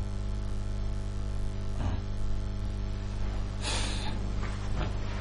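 Steady electrical mains hum with a static hiss, and a short breathy noise about three and a half seconds in.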